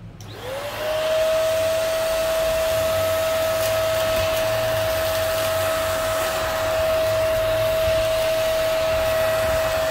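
Deerma DX900 handheld vacuum cleaner with a narrow crevice nozzle switched on: its motor spins up to a steady high whine within the first second, over a rushing air hiss, as it sucks up sand and leaf bits.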